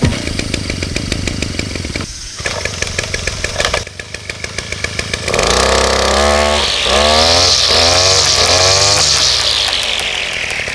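Engine brush cutter running with its nylon trimmer line spinning. About five seconds in it revs up sharply several times, then the revs fall away near the end.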